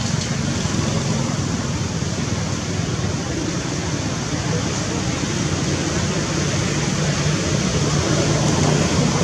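Steady, even rushing background noise with a constant low hum underneath, and no distinct calls, knocks or other events.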